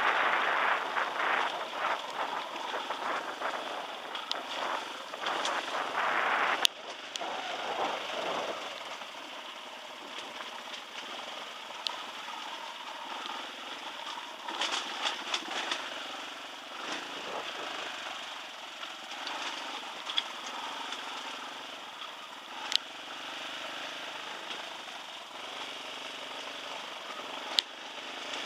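Dirt bike running while ridden along a rough, rocky track. A loud rushing noise fills the first several seconds and ends with a sharp knock; after that the engine runs quieter and steadier, with a few sharp clicks and knocks from the bike going over stones.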